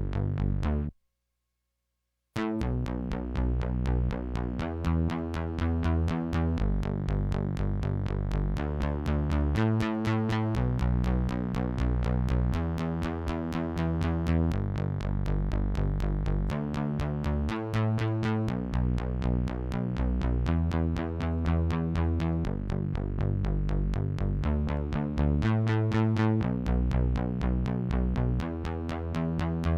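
Isolated synth bass line from a synth-pop track: a steady run of rapidly repeated low notes that change pitch every second or so. It cuts out completely for about a second near the start, then carries on.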